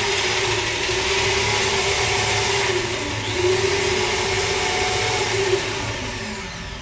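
Electric power tool motor running continuously under load, its pitch wavering slightly, then cutting off at the end.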